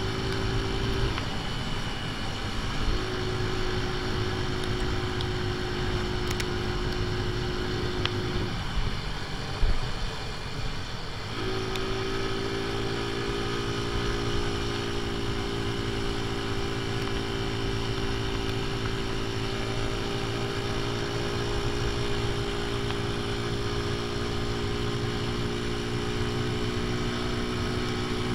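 AJS Tempest Scrambler's small single-cylinder four-stroke engine running at steady cruising revs under way, with its ignition timing set half advanced, over steady wind and road noise. The engine note breaks off briefly near the start and again for about three seconds a third of the way in, then runs steadily again.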